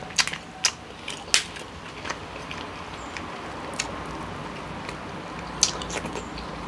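King crab leg shell being cracked and snapped apart by hand: a series of sharp cracks, a cluster in the first second and a half and more near the end, with softer crunching between.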